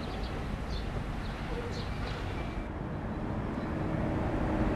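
Small birds chirping over a steady outdoor rumble, then, after an abrupt change just past halfway, the diesel engine of a TGM4 diesel-hydraulic shunting locomotive running with a low steady drone that grows louder toward the end.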